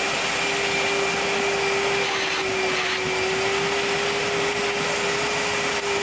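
Electric motor running steadily, an even whine over a rush of air.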